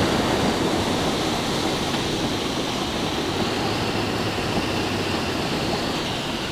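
Steady rushing road noise of a moving vehicle heard from inside the cab, slowly getting quieter.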